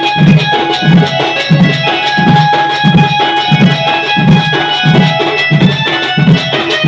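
Sambalpuri band music: hand drums beat a steady, quick rhythm, about three strokes a second, under a sustained melody line.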